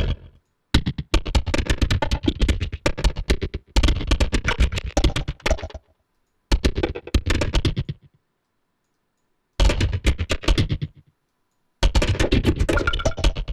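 Concatenative synthesis from a Mubu Max for Live device: short grains of sampled sound fired in rapid clicking streams, in several bursts of one to three seconds with dead silence between.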